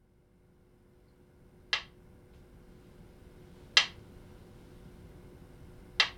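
Wooden beating stick (repni) striking a wooden block three times, about two seconds apart, each a sharp knock. This is the slow beat that keeps time for a chanted Ainu yukar epic.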